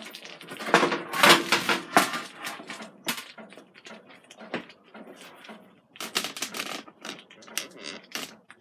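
Metal tongs and a metal food tray with a grill grate clattering as the tray is pulled out of the air fryer oven and set down on the counter: irregular clicks and rattles, loudest between about one and two seconds in, with another run of clicks near the end.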